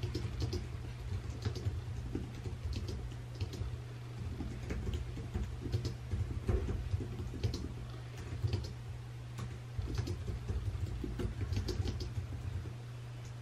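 Handwriting on paper at a desk: irregular light scratches and small taps as the writing goes on, over a steady low hum.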